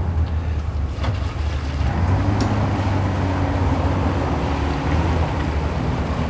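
Jeep Grand Cherokee WJ's 4.0-litre straight-six engine running under load as it drives off-road. Its note rises about two seconds in and then holds steady, under a low rumble of wind on the microphone.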